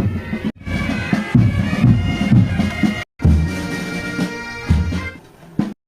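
Bagpipes playing a tune. The music cuts out abruptly twice, about half a second in and again around three seconds.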